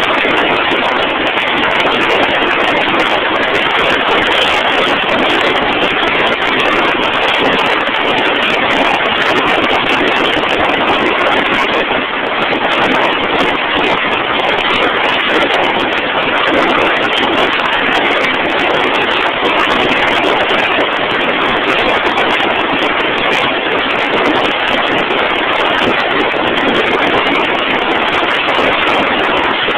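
Drill rig machinery running with a steady, loud noise that does not change.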